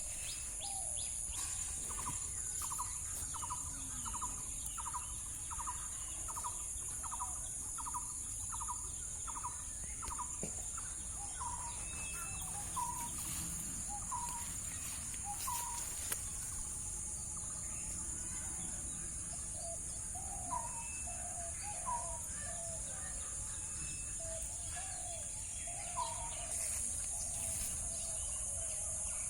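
A bird calling with a run of short, evenly repeated notes, about two a second, then scattered single calls, over a steady high-pitched insect drone.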